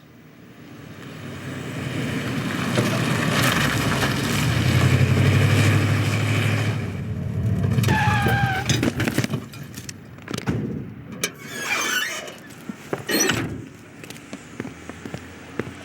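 Car engine growing louder and passing close, loudest about five seconds in, then a short falling tyre squeal about eight seconds in, followed by scattered rattles and knocks.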